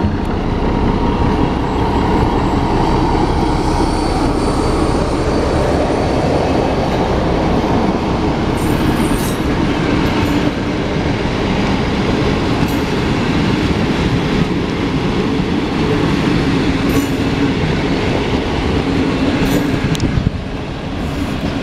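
A Romanian LDH 1250 diesel-hydraulic shunting locomotive runs hard as it passes, with a steady low rumble. Its passenger coaches roll by behind it, with brief high wheel squeals now and then.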